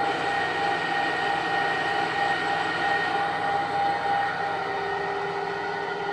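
2006 Runmaster RUN 330x1000RR lathe running with no workpiece, its spindle and headstock gearbox turning at 1255 rpm: a steady hum with several steady whining tones. About four seconds in, one of the tones gives way to a lower one.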